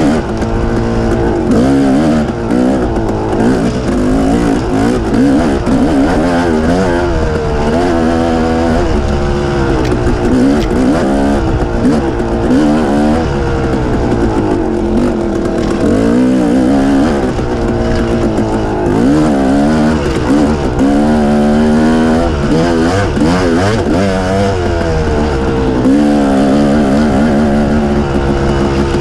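Dirt bike engine revving up and down with the throttle as it rides a rocky single track, its pitch rising and falling every second or two.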